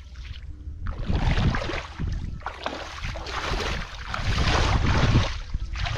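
Bare feet sloshing and splashing through shallow muddy water, in several surges about a second long each as the wader steps and stirs the mud.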